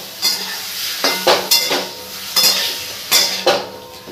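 A spatula scraping and knocking against a metal kadhai as raw chicken pieces are stirred in hot oil, about two strokes a second at an uneven pace, with a frying sizzle underneath.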